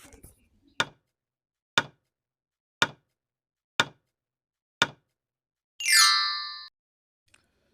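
Quiz countdown timer sound effect: five sharp ticks, one a second, then a louder chime with a quick downward sweep that rings for under a second.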